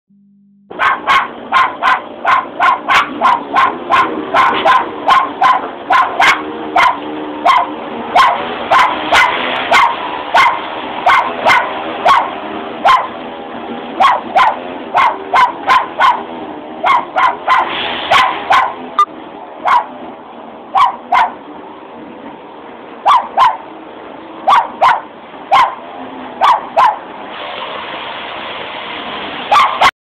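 A parrot imitating a dog's bark: short, sharp barks repeated over and over, about two a second at first, then coming more sparsely with pauses. It is a defensive display, the bird acting like a fierce dog to scare people off.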